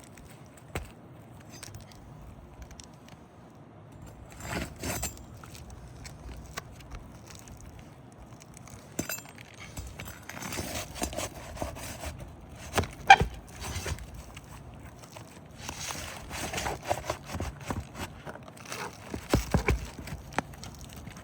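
Hand tools prying and scraping at asphalt roof shingles to unfasten their nails, with scattered clicks, clinks and knocks; the sharpest knock comes about halfway through.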